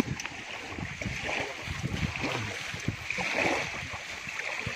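Shallow surf washing and sloshing at the water's edge around a fishing net being hauled onto the beach: a continuous, irregular swish of water.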